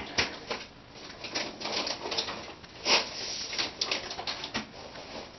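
Clear plastic wrapping around a replacement laptop LCD panel crinkling and rustling as the panel is handled, in irregular crackles, loudest about three seconds in.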